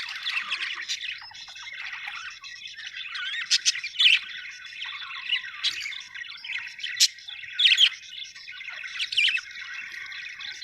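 Budgerigars chirping and warbling without pause, with sharper, louder squawk-like calls standing out every second or so through the second half.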